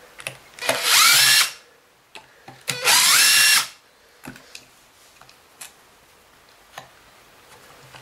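Cordless impact driver run twice, about a second each time, backing out two screws from a vacuum motor's end plate. Each run's pitch rises as it spins up. Light clicks of small parts being handled follow.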